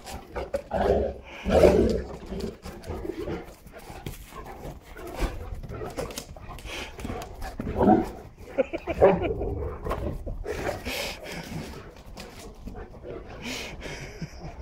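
Several Neapolitan mastiffs wrestling and vocalizing in irregular bursts, loudest about a second in and again around eight to nine seconds in, with scuffling thuds between.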